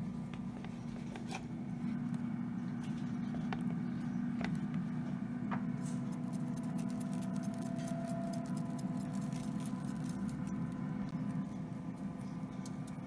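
Bamboo skewers of raw beef liver being handled in a bowl: scattered clicks and small wet, scratchy handling sounds, with a quick run of rapid clicking about halfway through, over a steady low hum.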